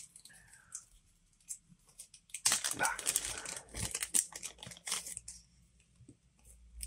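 Thin clear plastic zip-lock bag crinkling as hands handle and open it to get at a decal sheet, in an irregular run of crackles that is busiest from about two and a half seconds to five and a half seconds in.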